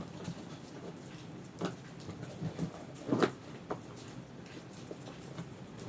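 Faint rain falling outside, with a few soft, brief sounds about one and a half and three seconds in.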